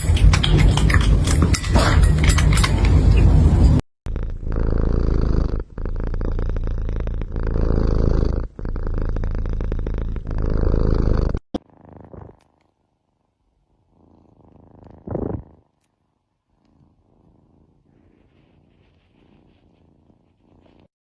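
Cat purring, a steady low rumble lasting several seconds, after a loud noisy stretch full of clicks; after it only a few faint short sounds.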